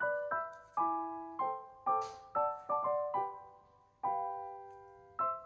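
Background piano music: a gentle melody of single notes and chords, each struck and left to ring away, with a longer held chord about four seconds in.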